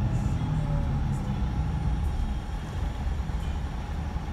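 Scania K124 coach's 12-litre straight-six diesel and road rumble heard from inside the passenger cabin, with a thin steady whine above the low drone. The engine note eases off and the rumble slowly fades.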